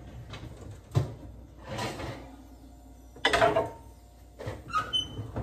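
Oven door and rack being handled, a knock and then a short scrape, and then a glass baking dish of roasted carrots set down on a gas stove's grate with a sharp clunk about three seconds in.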